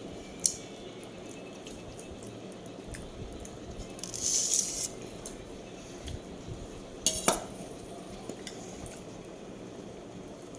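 Cutlery and dishes clinking during a meal: a sharp click about half a second in, a louder clatter about seven seconds in, and small scattered ticks, with a short hissy rustle around four seconds in.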